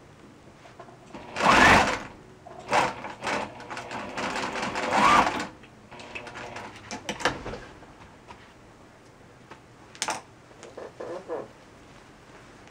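Electric sewing machine stitching a seam in several short bursts with pauses between, the longest about a second and a half. A click and a few brief quieter sounds come near the end.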